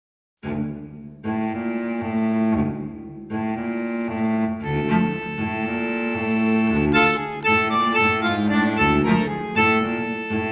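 Instrumental tango music starting out of silence about half a second in. Held chords become fuller and busier about halfway through.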